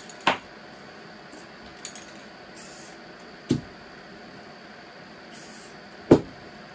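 Aerosol spray-paint can sprayed into a cup in two short hissing bursts, with a few sharp knocks of handling; the loudest knock comes near the end.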